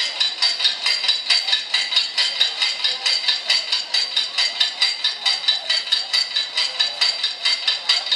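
Steady, rhythmic metallic clinking, about four sharp strikes a second, each with a high ringing tone.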